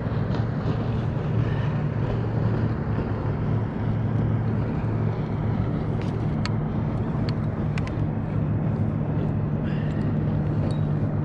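Steady low motor hum with a few faint clicks over it.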